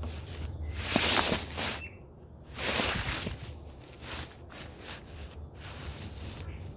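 A cat nuzzling a phone, its face and fur brushing against the microphone: two loud rustling rushes, about a second in and about three seconds in, then fainter ones, over a low steady hum.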